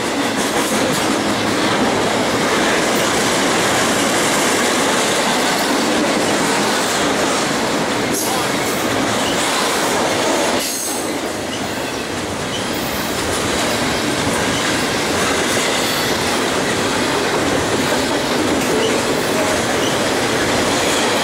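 Double-stack container freight cars rolling past close by: the steady noise of steel wheels on the rails.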